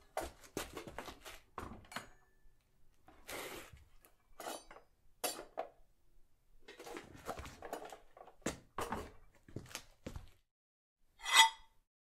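Foley handling sounds: a run of small clinks, scrapes and squeaks from props being moved, like cutlery or dishes. Near the end comes one short, louder metallic clatter with a ringing edge, the loudest sound of the stretch.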